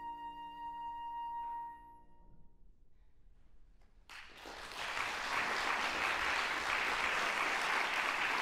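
Flute and grand piano holding the final chord of the piece, which dies away about two seconds in. After a brief hush, audience applause breaks out about four seconds in and keeps going.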